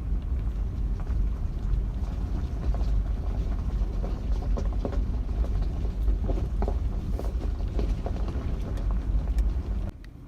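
Vehicle driving on a dirt road: a steady low rumble of tyres and drivetrain with many small knocks and rattles, dropping off suddenly near the end.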